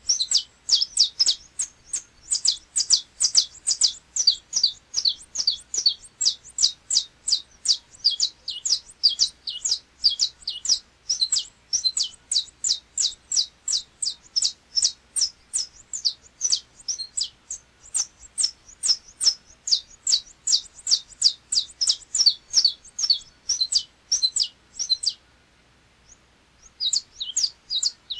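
Saffron finch (canário-da-terra) singing a long, rapid run of sharp, high notes in the 'açoite repicado' song style. It breaks off for about two seconds near the end, then starts again.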